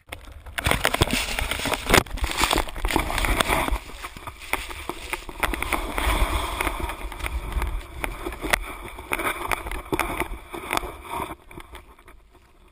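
Avalanche snow rushing over and around a GoPro in its housing as the rider is carried down the slope: a loud, continuous churning rumble with many knocks and scrapes of snow against the camera. It eases off near the end.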